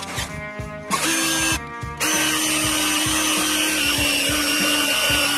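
Electric drill running: a short burst about a second in, then a long steady run from about two seconds on, boring out the crumbled rubber bushing in the mounting eye of a Zündapp moped's shock absorber. Background music with a beat plays underneath.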